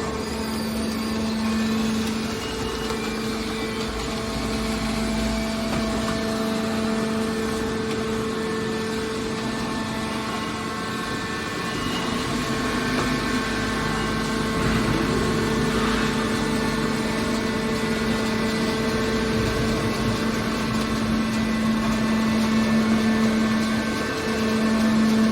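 Scrap car baler's power unit running with a steady, unchanging hum.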